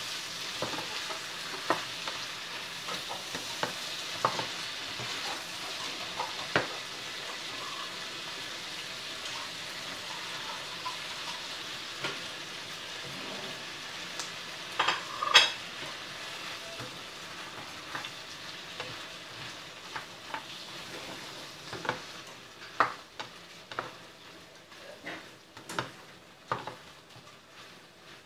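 Shrimp and vegetables sizzling in a frying pan while a spatula stirs and scrapes against it with scattered clicks. A few louder knocks come about halfway, and in the last few seconds the sizzle dies down while the spatula clicks come more often.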